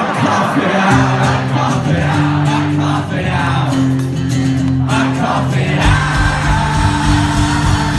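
Live rock band playing, with the crowd singing along. About six seconds in, a steady low beat comes in under the held chords.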